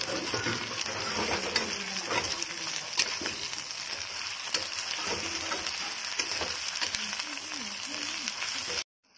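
Crabs sizzling as they fry in oil in a blackened kadai, with a steel spatula scraping and knocking against the pan as they are stirred. The sound cuts off suddenly near the end.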